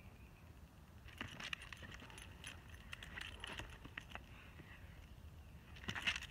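Light metallic jingling and clicking, like the tags on a big dog's collar, in irregular spells as the Great Dane moves about, loudest about six seconds in as it lunges forward.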